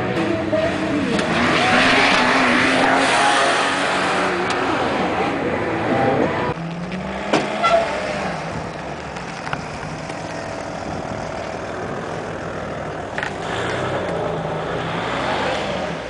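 A car engine revving hard through a slalom course, with a loud noisy rush strongest in the first few seconds. About six and a half seconds in it gives way to a quieter, steady engine idle, with a few sharp clicks.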